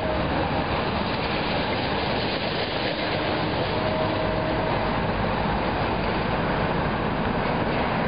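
High-reach demolition excavator at work: its diesel engine running while concrete and metal debris clatters and rumbles as the building is pulled down. The noise is steady and dense throughout.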